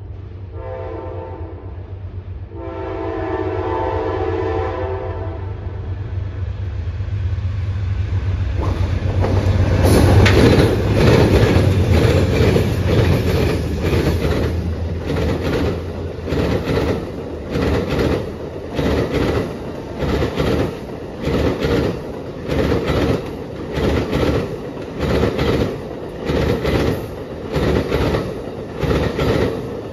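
Amtrak Auto Train passing: the diesel locomotive's horn sounds twice, then the train's rumble builds to its loudest as the locomotive goes by about ten seconds in. After that the passing bi-level cars' wheels clack over the rail joints in a steady rhythm, about once a second.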